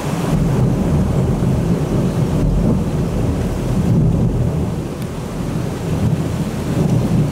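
Heavy thunderstorm downpour: rain pouring steadily, with a deep rumble of thunder underneath.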